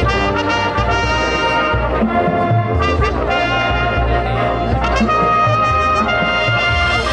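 Marching band playing its field show: the brass section holds loud chords over low drum beats.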